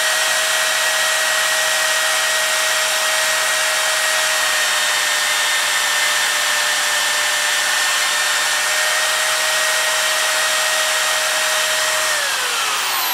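Milwaukee portable bandsaw, set up as a vertical bandsaw, running with a steady whine while cutting small pieces of 3/16-inch O1 tool steel. Near the end it is switched off and the whine falls in pitch as the motor and blade coast down.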